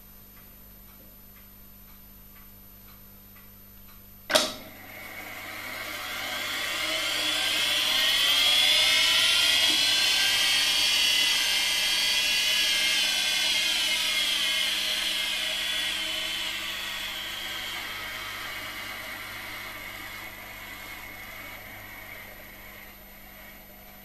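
Schlumberger F500 reel-to-reel tape recorder going into fast rewind: a click about four seconds in as the transport engages, then the whine of tape spooling at high speed, rising as the reels speed up, then slowly falling away as the transport slows on its way back to the zero counter position.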